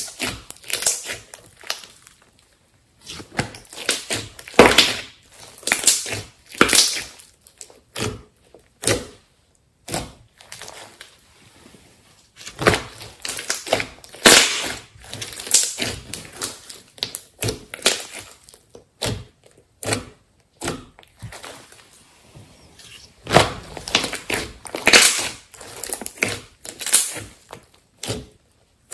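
Thick slime squeezed, pressed flat and pulled by hand, giving irregular bursts of squelching and crackling with short pauses between.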